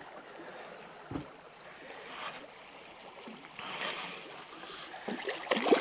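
Water splashing and sloshing as a small largemouth bass is reeled in to the side of the boat, with a single knock about a second in and the splashing growing louder near the end as the fish reaches the surface.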